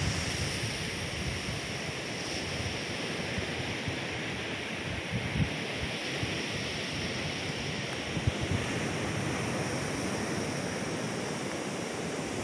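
Ocean surf breaking along a reef edge: a steady, even wash of waves, with light wind on the microphone.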